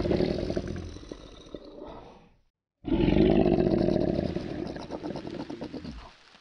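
Lion roaring twice. Each roar is loudest at its start and trails off into a string of short pulses. The first dies away about two seconds in, and the second starts after a brief silence about three seconds in and stops near the end.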